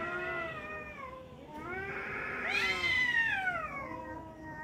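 Two tomcats caterwauling at each other in a standoff: long, drawn-out yowls that waver up and down and overlap. The loudest, about halfway through, climbs high and then slides down into a lower, continuing wail.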